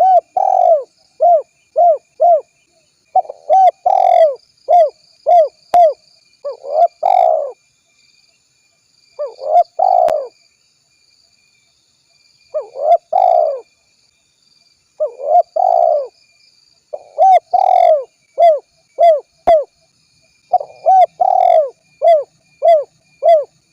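Spotted dove cooing in repeated phrases. Each phrase is a quick run of short coos around one longer, louder coo, with short pauses between phrases.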